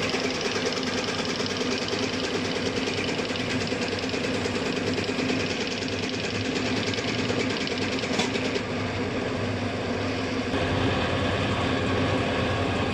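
Diesel injection pump test bench running a rebuilt Zexel six-cylinder inline fuel pump: a steady motor hum with a fast, even mechanical ticking from the pump and its test nozzles as its fuel delivery is measured for calibration.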